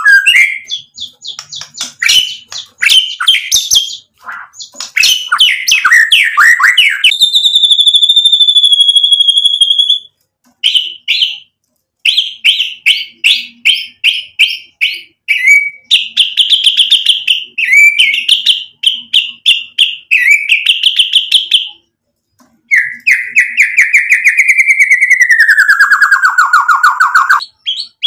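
White-rumped shama (murai batu) singing a full, vigorous song of varied phrases: rapid chattering trills and quick repeated notes, with a long steady high whistle about a quarter of the way in and, near the end, a long trill that slides down in pitch.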